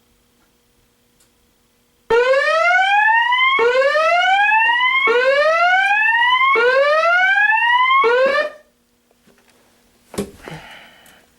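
Fire alarm speaker sounding a whoop evacuation tone: a rising sweep, repeated about every one and a half seconds, four times in full and a fifth cut short when it stops abruptly. A brief knock and rustle follow near the end.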